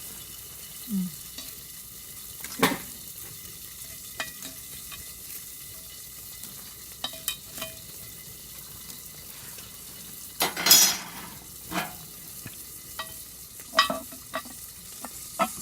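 Meat rolls and asparagus sizzling in cookware over a charcoal fire, with scattered clinks and knocks of utensils on the pan. About ten and a half seconds in comes one louder scraping clatter.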